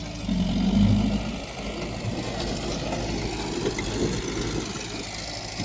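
Diesel engine of heavy earthmoving equipment running. It swells louder for about a second near the start, then settles to a steady run.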